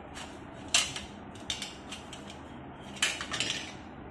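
Alloy-steel gas saver burner stands being handled, metal clinking and knocking against metal: one sharp clink about a second in, a couple of lighter ones, and a short run of clinks near the end.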